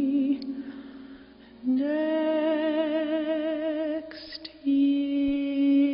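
A soprano voice sings long held notes with a slow vibrato, with an audible breath between them, accompanied by soft piano.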